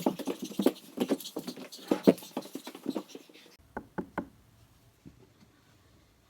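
Rapid pattering of quick taps, like hurried footsteps, for about three and a half seconds. After an abrupt change, three short sharp knocks come close together, then it goes quiet.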